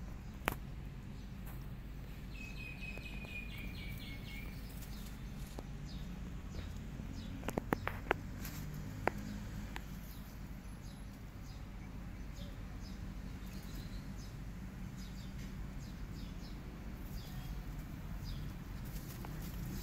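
Outdoor garden ambience with a steady low background, a bird chirping briefly a few seconds in, and light rustling and scuffling of kittens moving and wrestling over dry leaves, with a few sharp clicks near the middle.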